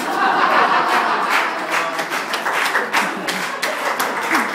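Audience applauding: many hands clapping at once, breaking out suddenly and keeping up.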